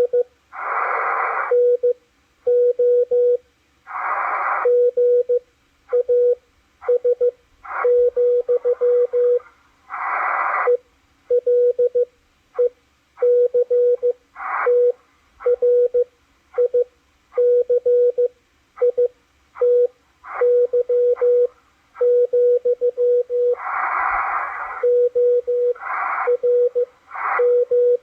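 Morse code from W1AW received on a Machilite DSP SDR receiver: a single steady tone keyed on and off in quick dots and dashes. Bursts of receiver hiss fill the longer gaps between groups.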